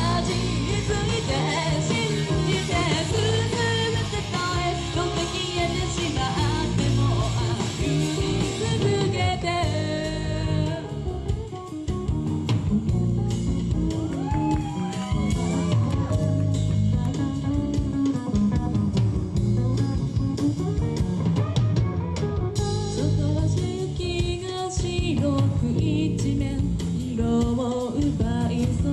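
Live rock band playing a song, with a singer, guitar and drum kit.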